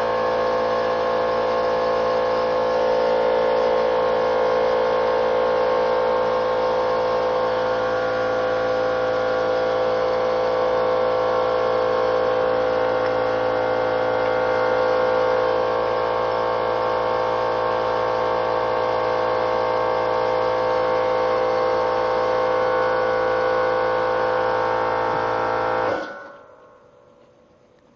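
A motor running steadily with a constant hum, cutting off abruptly about 26 seconds in.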